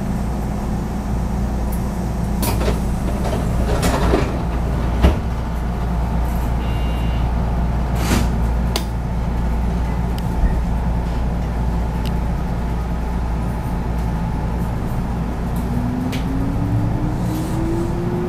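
Interior running sound of a JR West 221 series electric multiple unit: a steady low rumble with a few sharp knocks in the first half. From about three-quarters of the way in, a tone climbs steadily in pitch as the traction motors speed up under power.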